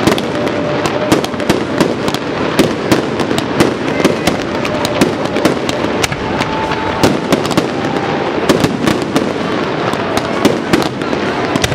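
Aerial fireworks display going off in a steady barrage: sharp bangs of shell bursts several times a second over a continuous crackle.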